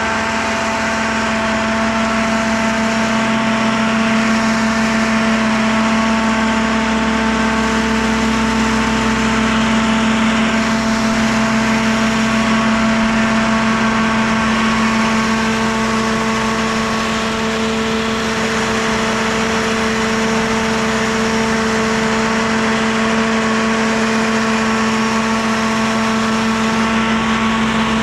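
Carlton SP6016TRX stump grinder's engine running steadily at a constant speed.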